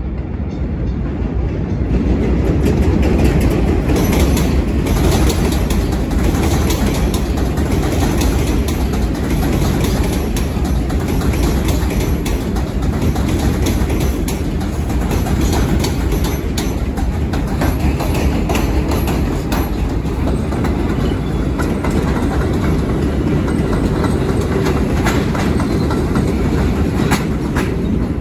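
New York City Subway train of R62A cars running into an elevated station on the 6 line, its wheels clattering over rail joints with a steady heavy rumble that grows louder about two seconds in.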